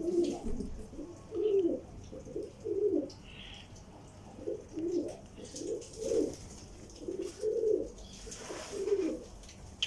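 Domestic pigeons cooing, one short low coo after another.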